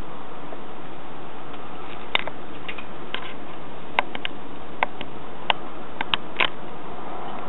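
A scattering of sharp metallic clicks, about ten over four seconds and irregularly spaced, from climbing hardware (carabiners and quickdraws) clinking on a lead climber's harness, over a steady hiss.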